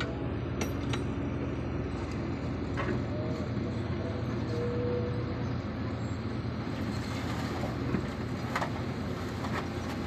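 Diesel dump truck engines running steadily, with a few sharp knocks and clanks from the machinery.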